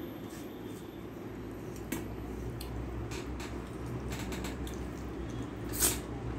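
Soft wet squishing and small clicks of rice and spinach being mixed by hand on a steel plate, then eating by hand, with a short, louder smack near the end as fingers are licked. A steady low hum runs underneath.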